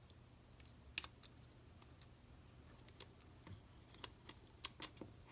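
Scattered small clicks and taps of small clock parts and tools being handled during reassembly of the flip clock motor, the sharpest about a second in and several more near the end, over a faint low hum.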